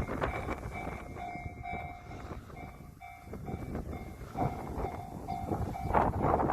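Japanese railway level-crossing warning bell in the JR standard electronic tone, ringing as a steadily repeating ding. Under it a train passes, its wheels clattering over the rail joints, loudest at the start and again near the end.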